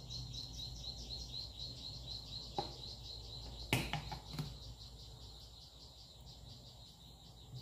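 An insect chirping in a fast, even pulse, about six chirps a second, growing fainter after the first few seconds, over a low steady hum, with a few light clicks about halfway through.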